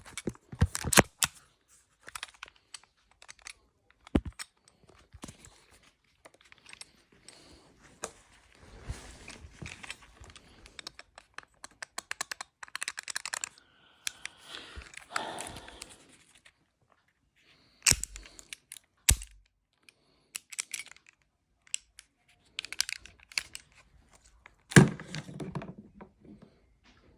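Irregular clicks, knocks and rustling of items and plastic packaging being handled, with a few louder thumps, the strongest near the end.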